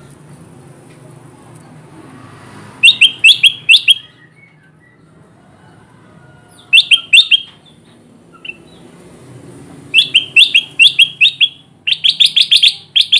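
Kutilang emas bulbul singing in short bursts of quick, clipped chirping notes, with pauses between the phrases; the last phrase is a longer, faster run. A low steady hum lies underneath.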